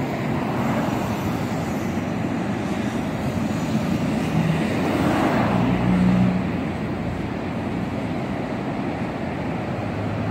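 Freeway traffic passing steadily at highway speed: tyre noise and engines of cars and pickup trucks going by. One vehicle passes loudest about halfway through, with a low engine hum.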